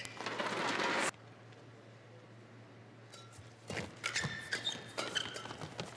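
Badminton doubles rally: sharp racket strikes on the shuttlecock and short squeaks of court shoes, coming thick and fast from just under four seconds in. A short burst of crowd noise at the start cuts off abruptly about a second in.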